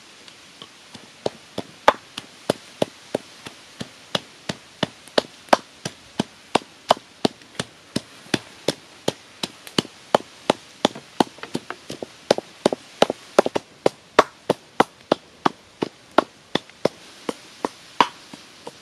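Wooden pestle pounding red chilies in a clay mortar, steady knocks about three a second, starting about a second in.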